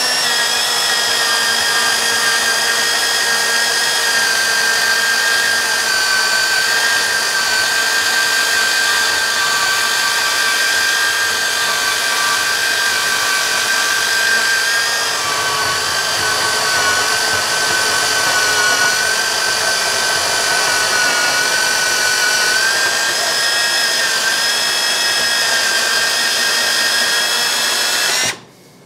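Handheld portable band saw cutting through 1.5-inch square steel tube, a steady motor and blade whine whose pitch wavers slightly under load. It stops suddenly near the end.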